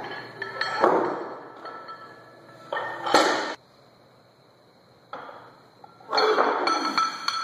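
Barbell loaded with bumper plates dropped from overhead, hitting the floor about a second in with a thud and rattle of plates, then a sharp metallic clank about two seconds later. Near the end the plates and collars clink and rattle as the bar is pulled from the floor for the next lift.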